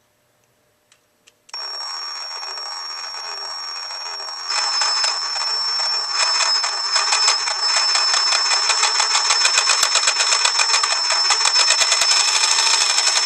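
Ryobi P513 18-volt cordless reciprocating saw running under its variable-speed trigger. It starts about a second and a half in at low speed with a steady high whine, then steps up in speed and loudness at about four and a half seconds and again a little later, the blade strokes clattering faster and faster.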